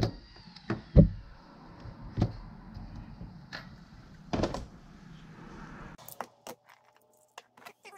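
Scattered knocks and clicks from a spool of thin hookup wire and a wire stripper being handled on a wooden workbench, the loudest knocks at the start, about a second in and about four and a half seconds in. A low steady background hum stops about six seconds in, leaving only faint clicks.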